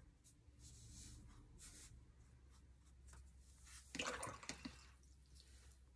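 Near silence with faint soft swishes of a watercolour brush on paper, and a brief louder sound about four seconds in.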